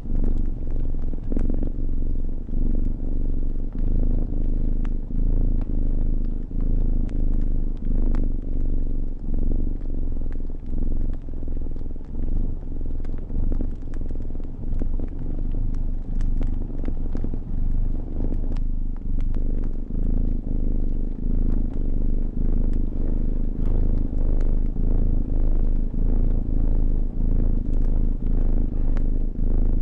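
A cat purring close up: a steady low rumble that swells and dips with each breath in and out. Faint wood-fire crackles pop here and there over it.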